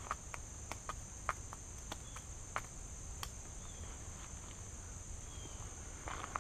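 Steady high-pitched drone of insects, with light, crisp clicks every half second or so as a knife cuts into a pickle.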